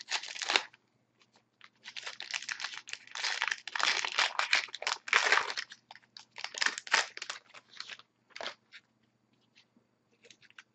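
A foil trading-card pack wrapper being torn open and crinkled, with the cards handled, in several irregular bursts of rustling over about eight seconds.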